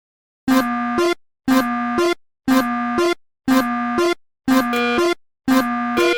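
Synthesized two-note electronic tone repeating about once a second, each beep lasting most of a second and ending with a short upward slide in pitch; it starts about half a second in after silence.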